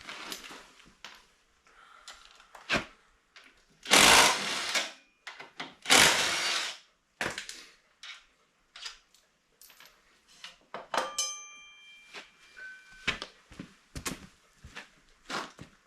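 Two bursts of a power tool, each about a second long, working the front brake bolts loose, with clinks and knocks of tools and metal parts between them.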